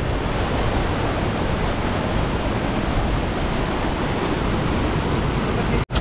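Mountain stream rushing over boulders: a steady, dense hiss of white water that cuts off abruptly near the end.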